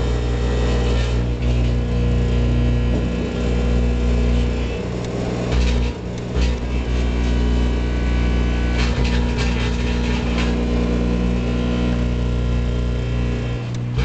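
Microwave oven running with a steady electrical hum while a plasma ball from a candle flame buzzes and crackles inside the cavity. The crackling comes in clusters, and the hum drops out briefly about six seconds in and again near the end.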